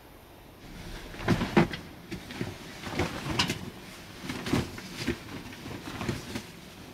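Rustling and handling of a thick garment, with irregular bumps and knocks; the loudest pair comes about a second and a half in.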